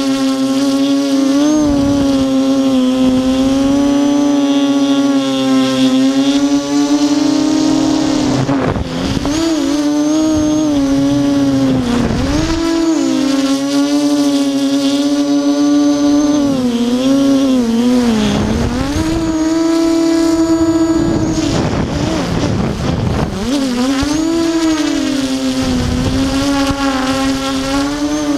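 Armattan Tilt FPV quadcopter's motors and propellers whining at a steady pitch while it hovers. Through the middle the pitch dips and swings up and down again and again as the throttle is worked, then it settles back to a steady whine near the end.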